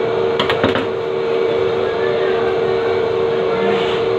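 A steady machine hum with a constant pitched tone over a noisy background, with a few sharp clicks about half a second in.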